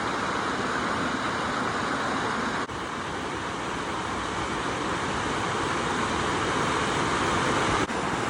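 Stream water flowing: a steady, dense rush, with two brief dropouts in level, about two and a half seconds in and near the end.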